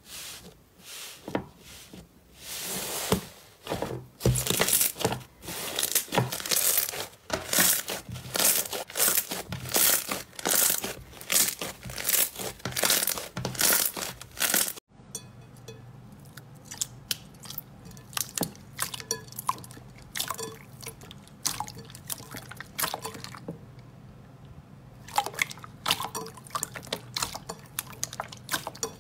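Hands pressing through the dried crust of an iceberg slime, a dense run of crisp crackles and crunches as the crust breaks. About halfway the sound cuts to softer squishing with scattered clicks over a faint low hum as slime is folded and kneaded.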